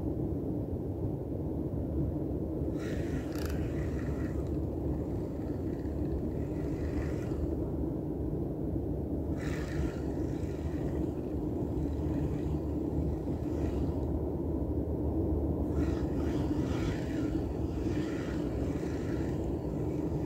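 Spinning reel cranked in three short spells with pauses between, its gears and line giving a fine ticking whir: a stepped jig retrieve. A steady low rumble sits under it and is the loudest sound.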